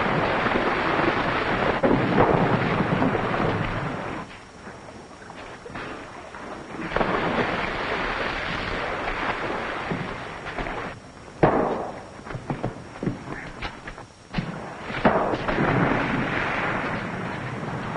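Rough sea washing over a submarine's deck in loud surges of rushing water and storm noise, with a few sharp knocks and cracks in the quieter spells between them.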